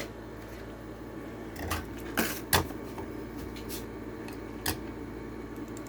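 A few short, sharp clicks and crackles of plastic-and-cardboard toy car packaging being handled and opened, over a steady low hum.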